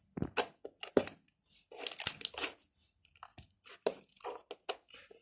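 Slime being squished and pulled by hand, giving a run of irregular sticky pops, clicks and crackles.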